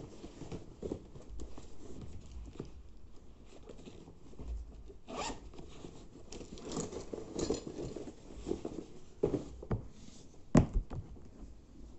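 A bag being packed: a zipper pulled, with rustling and scraping as books and stationery are handled, and one sharp knock near the end.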